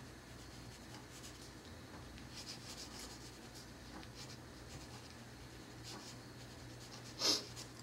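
Pencil scratching on paper in light, irregular strokes while sketching contour lines, with one louder stroke about seven seconds in, over a low steady hum.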